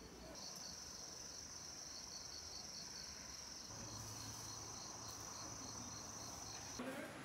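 Faint insect chorus of crickets: a steady, high-pitched continuous trill with an evenly pulsing chirp under it, cutting off shortly before the end.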